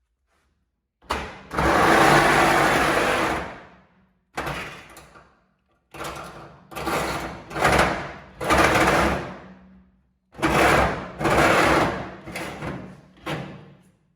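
Electric power cutting tool cutting through truck-bed sheet metal in repeated short bursts, each starting sharply and dying away as the trigger is let go.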